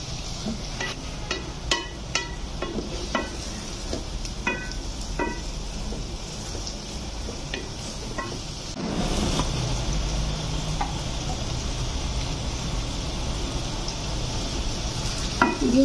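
Onions sizzling as they fry in an aluminium pot, stirred with a wooden spoon that scrapes and knocks against the pot. About nine seconds in the sizzle becomes louder and steadier, as chopped tomatoes go into the pot.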